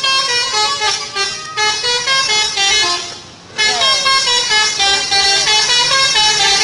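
Bus 'telolet' horn, a set of musical air horns, playing a melody of held notes that step up and down; it breaks off briefly a little after three seconds in, then starts again with a few sliding notes.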